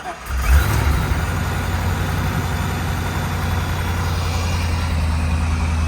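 Chevrolet C5 Corvette's 5.7-litre LS V8 just started, flaring briefly about half a second in, then settling into a steady idle. It is the engine's first run after sitting for about three years.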